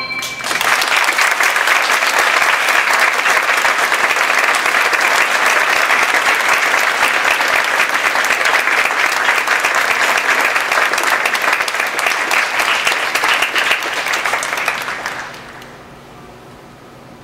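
Theatre audience applauding, breaking in just as the orchestra's last chord ends. The clapping holds steady, then dies away about fifteen seconds in.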